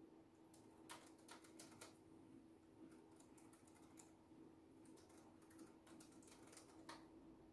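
Faint typing on a keyboard: quick runs of keystroke clicks broken by short pauses, over a faint steady hum.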